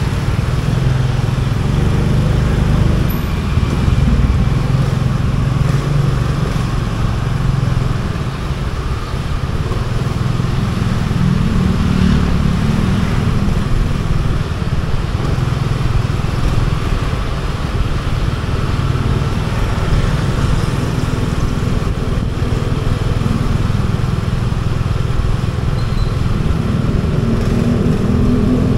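Motorcycle engine running while riding along, its pitch rising and falling a little with the throttle, around twelve seconds in and again near the end.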